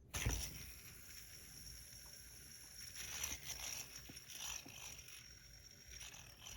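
Faint handling noise: a bump at the start, then light clicks and rustles of small metal fidget parts being handled, over a steady hiss.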